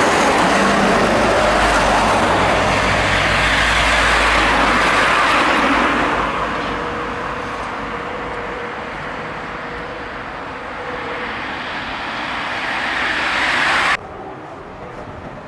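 Van Hool AG 300T articulated trolleybus passing close by, mostly the sound of its tyres on the road, fading as it moves away while a faint steady tone lingers. The road noise then swells again and cuts off suddenly, leaving quieter street sound.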